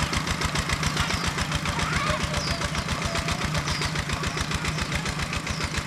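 Two-wheel walking tractor's single-cylinder diesel engine running steadily as it pulls a loaded trailer, with a fast, even beat.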